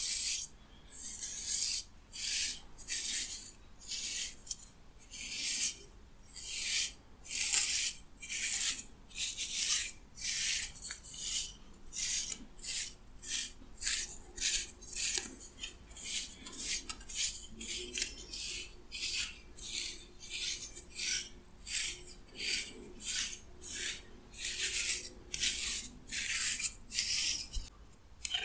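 Wooden comb drawn repeatedly through oiled hair, each stroke a brief high hiss, about three strokes every two seconds.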